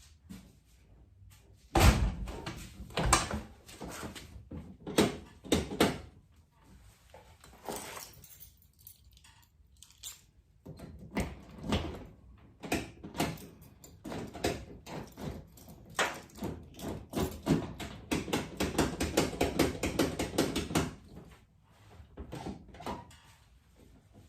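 Door lock and latch of a 1995 Nissan D21 pickup being worked by hand: a loud clunk about two seconds in, then scattered clicks and knocks, and several seconds of fast rattling clicks near the end as the stuck lock is jiggled.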